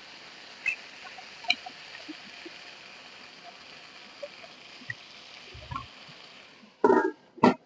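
Spiced chicken pieces frying in hot oil: a steady sizzle with scattered small pops, then two loud knocks near the end.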